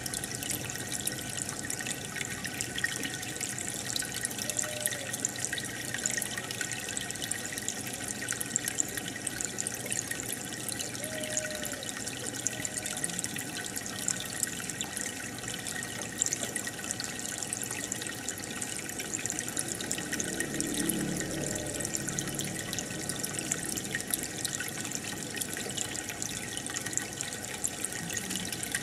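Aquarium water bubbling and trickling steadily from the air bubbler and filter, with a constant fizz of tiny bubble pops.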